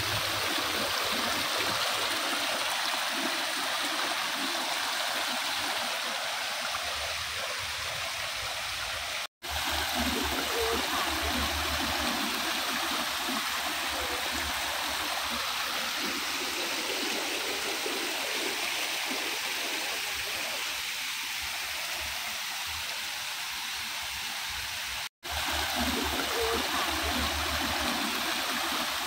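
Small stream splashing and gurgling steadily down a cascade between mossy rocks. The sound cuts out twice for a split second.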